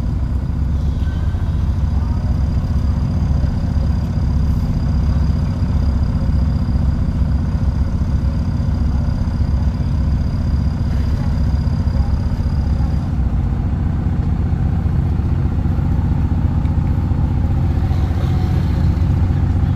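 A heavy truck engine running steadily at an even pitch. A faint, thin high whine runs above it and cuts out about two-thirds of the way through.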